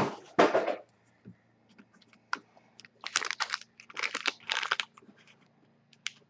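Foil trading-card pack wrappers crinkling and rustling as they are handled and set down, in short bursts: one at the start and a cluster about three to five seconds in. A faint steady low hum runs underneath.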